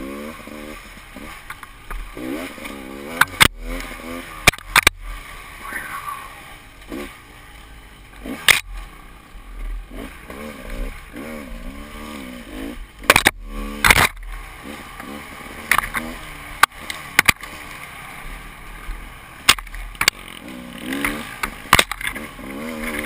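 Enduro motorcycle engine revving up and down over and over, its pitch rising and falling, with many sharp knocks and clatters through it.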